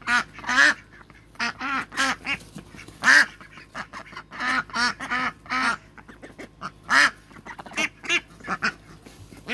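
A flock of domestic ducks, many of them Indian Runners, quacking over and over as they crowd in to be hand-fed, short calls a fraction of a second apart from several birds at once.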